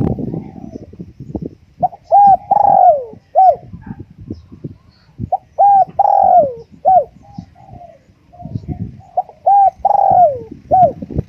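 Spotted dove cooing: three repeated phrases about four seconds apart. Each phrase is a couple of short coos around a longer middle note that falls in pitch. Faint clicking and rustling sit underneath.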